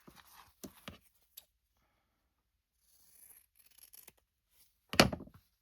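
Handling of fabric, ribbon and craft tools on a tabletop: a few small clicks, a stretch of rustling or snipping, then one loud thump near the end as something is put down.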